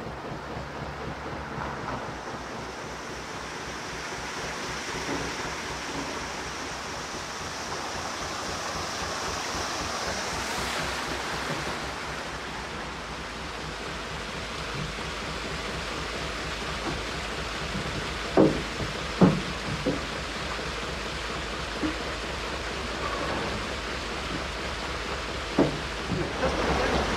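Rushing water in a canal lock, swelling and easing, over the slow, even beat of the narrowboat's traditional Petter McLaren B2 diesel engine. A few sharp knocks sound in the second half.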